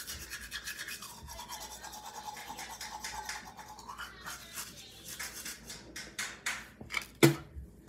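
Manual toothbrush scrubbing teeth in quick back-and-forth strokes. A single sharp knock near the end is the loudest sound.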